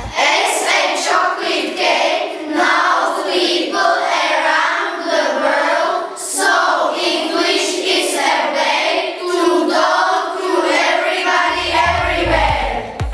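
A group of children singing together, unaccompanied. Backing music comes back in near the end.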